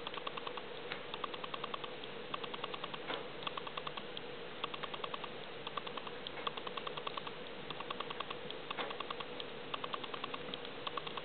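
Wood fire burning in a small cast-iron wood stove with its door open: a few sharp crackles and pops from the burning logs, over a steady run of short bursts of rapid ticking.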